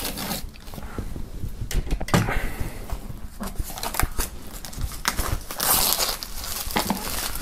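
Plastic shrink-wrap film being slit with a knife and peeled off a cardboard box: irregular crinkling and tearing crackles, with a louder burst of crinkling about six seconds in.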